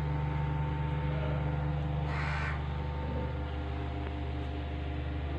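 A steady low hum runs throughout, with a single short, harsh call of about half a second about two seconds in.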